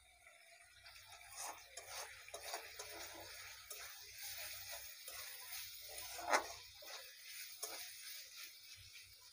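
Steel spatula stirring beef pieces through sizzling spice paste in a kadai, with irregular scrapes and clicks against the pan and one sharper clank about six seconds in: the beef being bhuna-fried in the masala.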